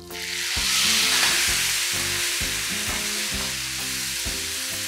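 Grated-potato rösti sizzling in hot oil in a frying pan as it is slid uncooked side down off a plate. The sizzle swells during the first second, then holds steady.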